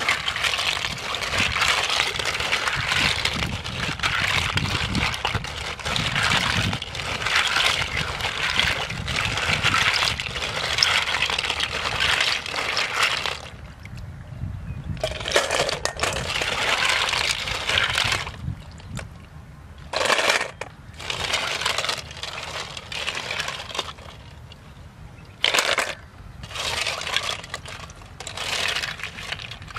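Snail shells being scrubbed together by hand in a metal pot: a dense, gritty clatter of shells grinding against each other and the pot. It runs without a break for the first half, then comes in short stop-start stretches.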